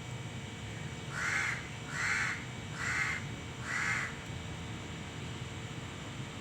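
A crow cawing four times in a steady series, about one caw a second, over a steady background hum.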